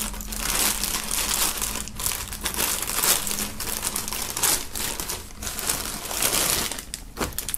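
Clear plastic polybag crinkling and rustling as hands open it and pull out the folded jersey inside, with irregular crackles throughout.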